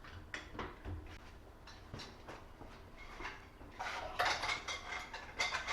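Metal tools and parts clinking and clattering against each other in an irregular run of knocks, growing busier and louder after about four seconds, with a faint metallic ring.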